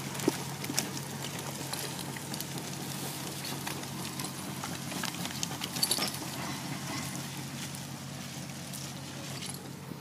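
Heavy steel chain dragged over the ground by bulldozers, clanking and rattling as it rips out and drags stumps and brush, with sharp knocks just after the start and about six seconds in, over the steady low drone of distant bulldozer engines.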